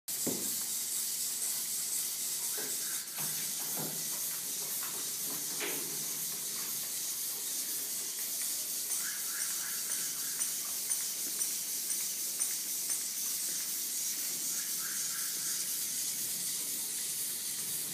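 Steady high-pitched hiss, with a few faint clicks and short runs of rapid ticking whir.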